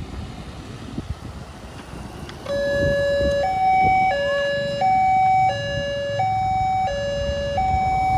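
Railway level-crossing warning siren starting about two and a half seconds in: an electronic two-tone alarm alternating steadily between a lower and a higher note, each held for under a second. It signals an approaching train as the crossing barriers begin to close.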